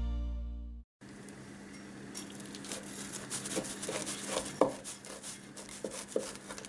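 Intro music fading out in the first second. Then a large knife cuts through a pan-fried cheese and potato flatbread on baking paper: a faint run of small crackles and scrapes, with several sharper cuts a few seconds in.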